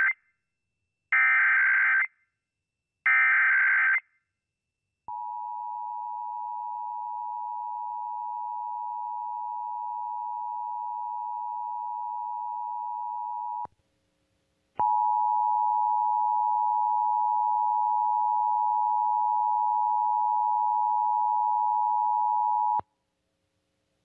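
Emergency Alert System test on a TV broadcast: three harsh, screeching bursts of the EAS data header, about a second each, the first already under way at the start. They are followed about five seconds in by the steady two-tone attention signal. It stops near 14 seconds and starts again louder about a second later, holding for about eight seconds before cutting off.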